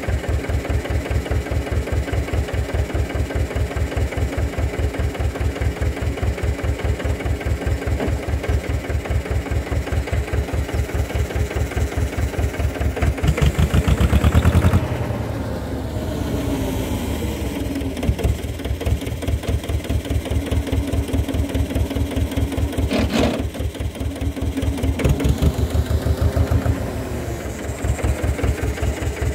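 HMT 2522 diesel tractor engine running with an even beat, revving up briefly about halfway through before settling back, with a single sharp click a little later.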